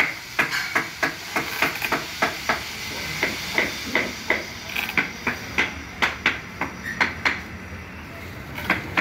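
Repeated sharp knocks and clicks, two or three a second, from hand tools working on a wooden sofa frame.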